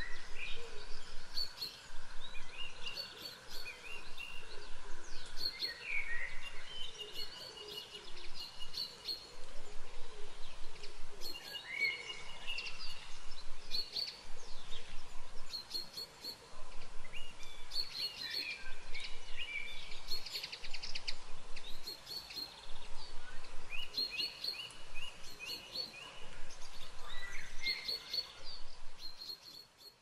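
Wild songbirds singing and calling: overlapping bursts of short chirps, trills and whistled phrases, with no pause longer than a moment, over a faint steady outdoor background.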